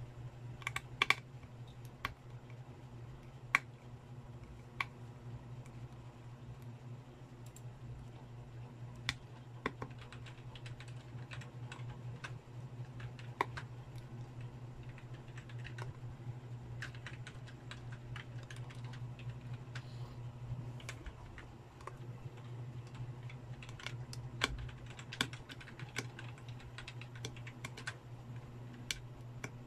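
Small, irregular clicks and scrapes of a thin pick working along the edge of a phone's display frame, cleaning a water-damaged Vivo Y91, over a steady low hum.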